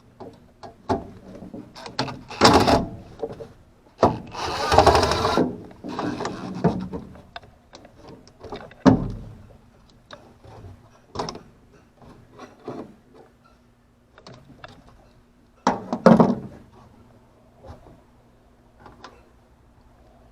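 Irregular clicks, clatter and knocks of handling tools and parts, with a longer scraping rush about four seconds in and sharp knocks about two, nine and sixteen seconds in, over a faint steady hum.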